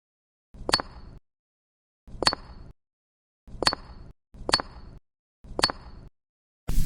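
Miniature clay bricks clinking as they are set in place: five sharp clinks, each with a short ring, about a second apart, with dead silence between them.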